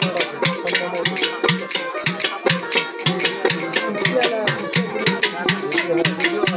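Live Bengali folk pala gaan music: a drum and jingling percussion keep a quick, steady beat of about four strokes a second under a wavering melody line.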